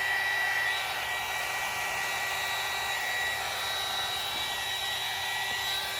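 Handheld electric heat gun blowing steadily, with a high, even motor whine, used to warm vinyl tint film on a car taillight.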